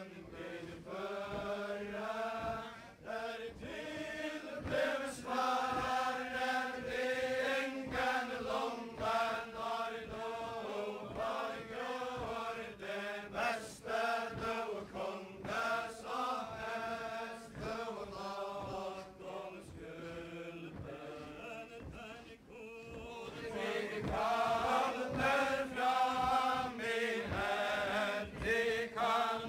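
A group of voices singing a Faroese ballad in unison, in the old style sung to the chain dance, on a 1959 recording, verse after verse in a steady, chant-like melody. Steady low thuds run beneath the singing. The singing eases briefly about three-quarters of the way through, as one verse ends and the next begins.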